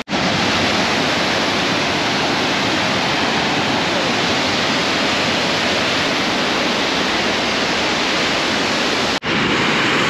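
El Suspiro waterfall rushing steadily, a loud, even roar of falling water. It cuts out for an instant near the end.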